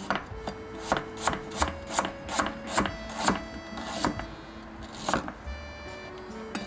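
Kitchen knife chopping on a cutting board in irregular strokes, about two or three a second, stopping about five seconds in, over background music.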